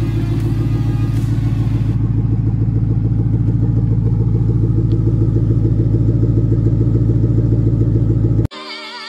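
Ford Mustang's engine idling steadily through its quad exhaust, a deep even rumble with a regular pulse. It cuts off abruptly near the end, replaced by music.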